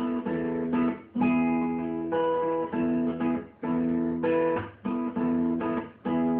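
Acoustic guitar strummed in a steady rhythm, in the instrumental break between sung verses, with the chords dipping briefly about once a second.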